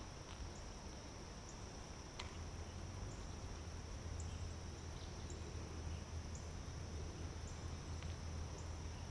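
Steady high insect chorus in pond-side vegetation, with faint high ticks about once a second. A low rumble sits underneath, and a single click comes about two seconds in.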